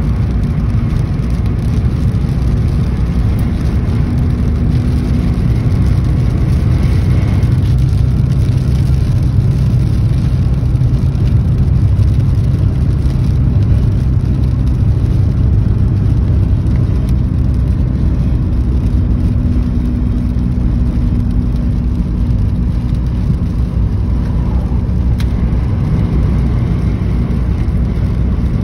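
Steady low drone of a car's engine and tyres on the road, heard from inside the cabin while driving at highway speed.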